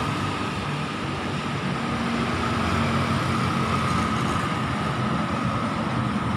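Road traffic: motorcycles and cars driving past on a city street, a steady mix of small engines and tyre noise, with a steady high-pitched tone over it.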